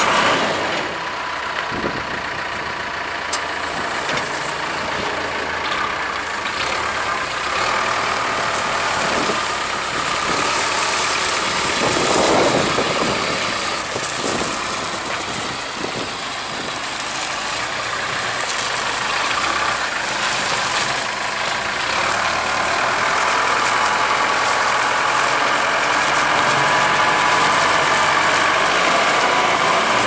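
Case 4T-390 four-cylinder turbo diesel engine of a Case 580 Super K backhoe running as the machine drives around. It gets louder for a moment about twelve seconds in.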